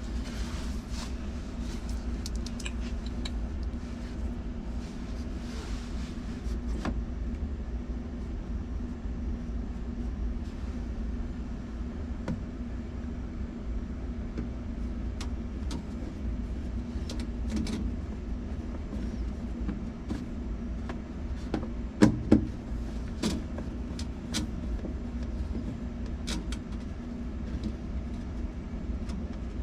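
A steady low mechanical hum, with scattered light clicks and taps and a louder knock about 22 seconds in.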